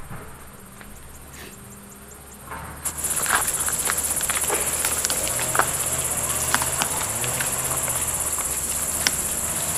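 Insects chirring in a steady high-pitched chorus that starts up about three seconds in, with scattered light knocks and rustles underneath.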